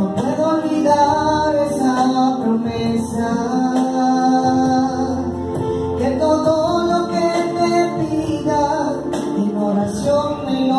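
A woman singing a Catholic worship song into a microphone, accompanied on electronic keyboard.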